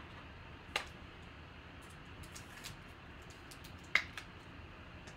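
Trading cards and a foil card-pack wrapper handled by hand: a few sharp clicks with faint ticks between, the loudest click about four seconds in.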